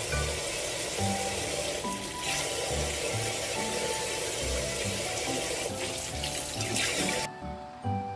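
Kitchen tap running, water splashing into a stainless steel bowl in the sink; it cuts off suddenly near the end. A toy-piano background tune plays throughout.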